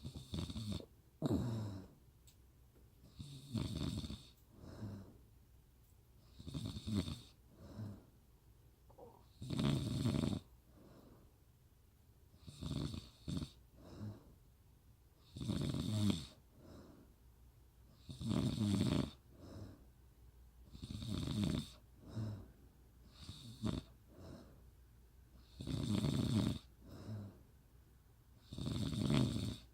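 A woman snoring: a snore about every three seconds, several of them followed by a shorter, softer one.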